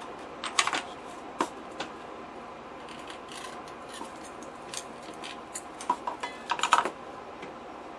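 Light clicks and clatter of a metal capacitor can and its parts being handled and fitted together, in short scattered taps with a busier cluster of clicks near the end.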